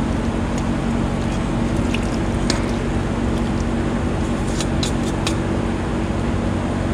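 Marinade poured from a stainless steel bowl onto bass fillets cooking in a hot skillet, over a steady mechanical hum. Metal tongs clink against the bowl and pan once about two and a half seconds in, then three times between about four and a half and five and a half seconds in.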